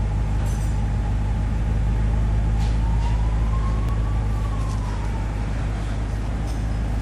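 BMW M6 Gran Coupe's twin-turbo V8 idling steadily, a low even rumble with no revving. A faint tone slowly rises and falls in pitch behind it.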